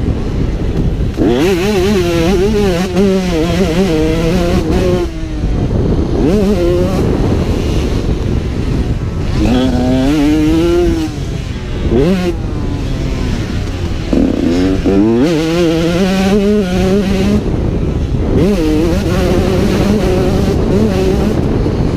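KTM 125 two-stroke motocross engine revving hard, its pitch climbing and falling back several times as the rider gets on and off the throttle, heard from a helmet-mounted camera.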